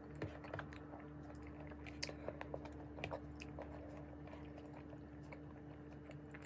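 Faint chewing and mouth sounds of a person eating cooked vegetables by hand, with scattered soft clicks, over a steady low hum.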